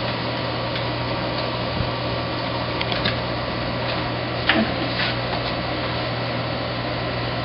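Steady room hum and hiss, with a few faint short clicks about three, four and a half, and five seconds in.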